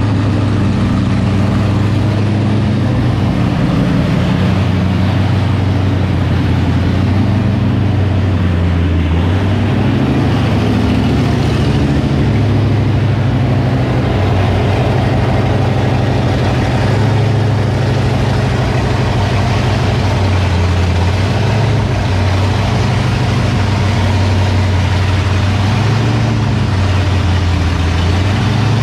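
Freshly built Ford 351 Cleveland V8 with a Comp Thumper camshaft running steadily through its camshaft break-in, its note wavering slightly with an uneven, lumpy beat.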